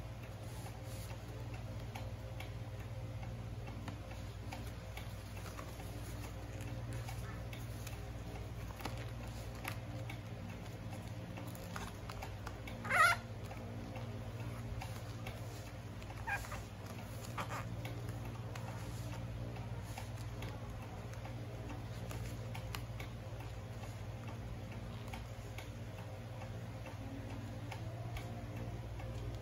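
Faint rustling and creasing of a sheet of paper being folded by hand, with scattered small clicks over a steady low hum. A short squeak stands out about halfway through, with two fainter ones soon after.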